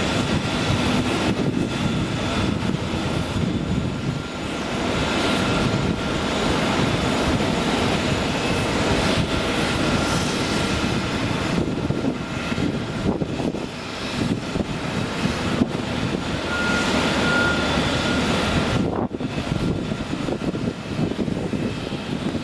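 Boeing 747-8 freighter's four GEnx jet engines: a loud, steady rushing noise with faint whining tones, dipping briefly a few times.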